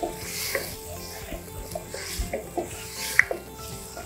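Wooden spatula stirring sauce in a non-stick frying pan, with short scrapes and light knocks against the pan, the sharpest knock about three seconds in. Soft background music with held notes plays underneath.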